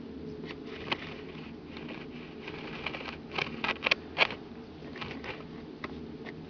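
A puppy's paws scratching and tapping on a surface in small, irregular clicks, bunching into a quick flurry around the middle.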